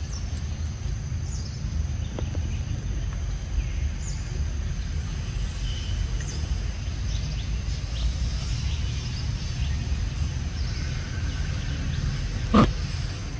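Outdoor ambience: a steady low rumble with faint, scattered high chirps. A single sharp crack near the end is the loudest sound.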